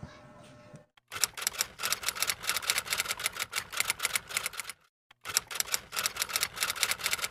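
Typewriter sound effect: rapid key clacks in two runs, with a short break near the middle, after about a second of faint room noise.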